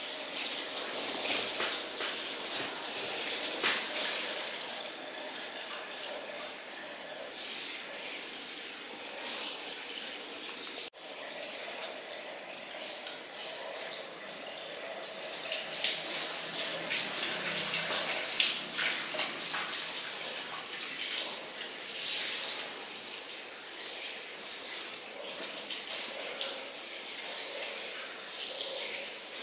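Handheld salon shower head spraying water onto a person's hair and scalp over a shampoo basin: a steady hiss of running water with irregular splashing and crackle as the water hits the hair and hands.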